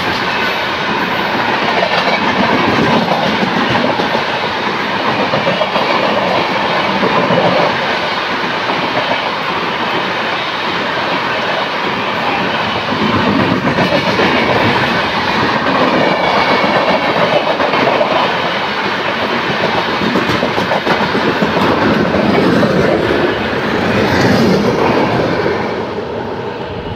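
Indian Railways AC express train's LHB coaches passing close by, their wheels clattering over the rail joints in a steady loud rumble that fades near the end as the train draws away.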